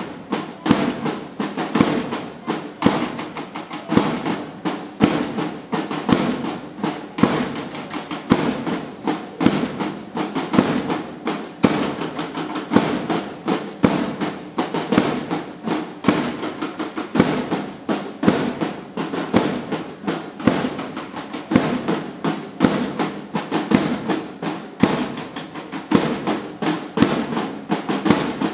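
Slow march music: drums beating a steady rhythm under a held melody.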